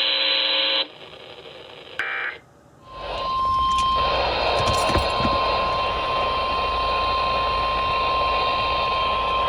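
NOAA Weather Radio over a receiver: a brief buzzing burst cuts off under a second in, and after a short gap a single steady alert tone, the 1050 Hz warning alarm that signals a warning is about to be read, starts about three seconds in over loud static hiss and hum.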